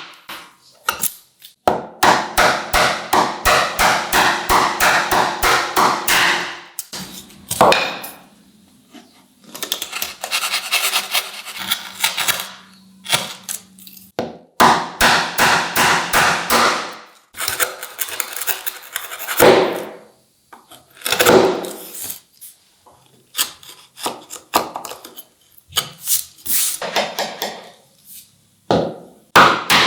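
Hand woodworking tools working wood: a run of quick, even strokes at about four a second, then irregular scraping bursts and separate knocks broken by short pauses.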